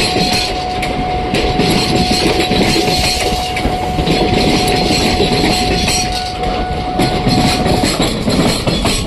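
Express passenger train passing at speed, its wheels clattering over the rail joints. A steady high tone runs underneath and stops near the end.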